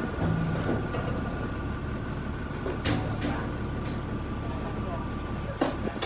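Steady low rumble with a faint steady whine, background voices, and a couple of short knocks from road cases being handled on a stage deck.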